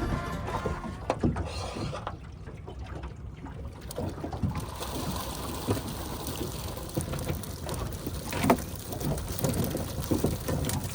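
Knocks and bumps in a small boat as a fishing net full of catfish is hauled aboard, with water noise; the loudest knocks come about a second in and again near the end.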